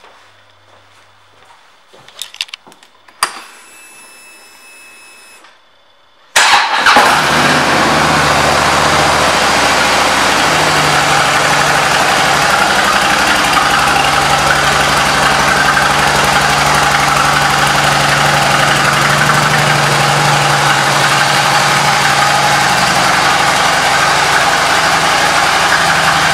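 A few clicks and a short whine, then the 2008 Harley-Davidson Ultra Classic's Twin Cam 96 V-twin engine starts about six seconds in and idles steadily.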